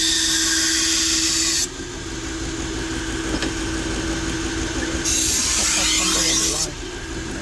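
Toolker 1x30 belt grinder running with a steady motor hum while a chef's knife blade is drawn across the abrasive belt. Two sharpening passes give a loud steel-on-belt hiss: one that stops about a second and a half in, and another about five seconds in lasting under two seconds.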